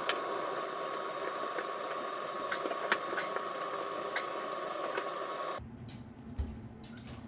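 Steady mechanical whirring with a constant high tone, a few faint clicks over it, starting abruptly and cutting off suddenly after about five and a half seconds.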